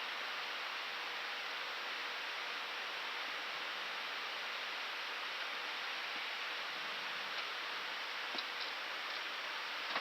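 Steady cockpit noise of an Airbus A319 in climb: an even rushing hiss of airflow and air conditioning, with a couple of faint clicks about eight seconds in.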